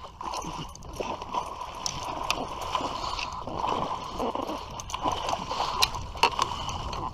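A hooked fish thrashing and splashing at the water's surface as it is scooped into a landing net: irregular splashes and knocks, with a faint steady hum underneath.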